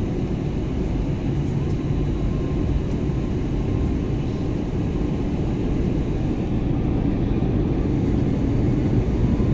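Steady cabin noise of an airliner in flight, the rush of engines and airflow heard from inside the cabin, growing slightly louder toward the end.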